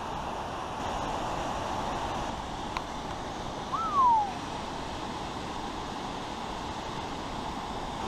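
Steady rush of a waterfall (Minekill Falls). About four seconds in, one loud, short whistle briefly rises, then slides down in pitch.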